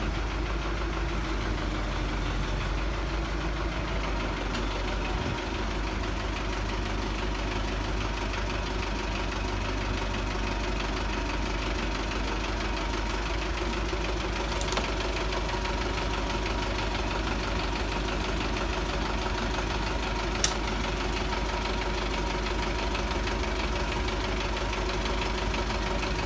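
A light crane truck's diesel engine running steadily to drive its hydraulic crane as it lifts a truck engine hung on a chain. Two sharp clicks stand out, one about fifteen seconds in and a louder one about twenty seconds in.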